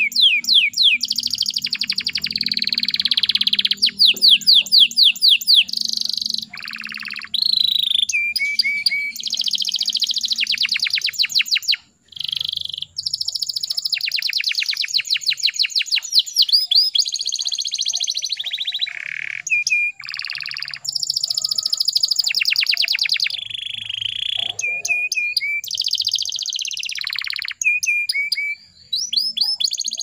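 Canary singing a long, nearly unbroken song of fast trills and rolls. Runs of rapid repeated notes alternate with short held whistles, with a brief pause about halfway through.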